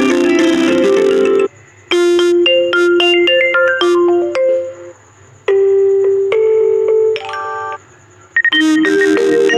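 Ringtone previews playing on a Vivo Y53 phone: a string of different short electronic melodies. Each stops abruptly after one to three seconds as the next ringtone is selected, four in all, with brief gaps between them.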